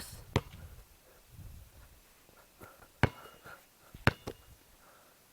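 A few separate sharp knocks, two of them close together about four seconds in, from a basketball bouncing on a hard outdoor court.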